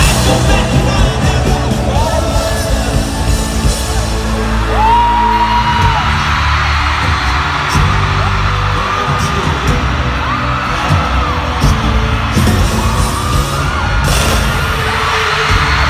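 Live pop band playing a song on stage, a singer holding several long notes over heavy bass and drums, with fans yelling and whooping in the crowd around the phone microphone.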